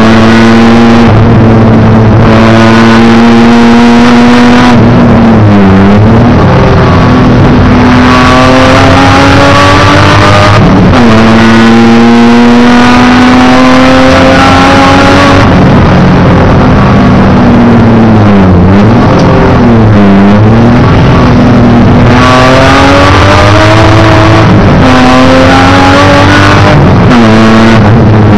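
Race car engine heard loud from inside the caged cabin, its pitch climbing through long pulls and dropping sharply at each gear change. There are quick dips and rises in revs several times, as when braking and downshifting for corners.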